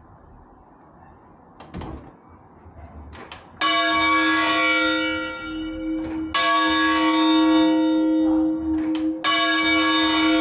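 A church bell in its tower, struck three times about three seconds apart. Each stroke rings on with a long hum at the same pitch. A couple of soft knocks come before the first stroke.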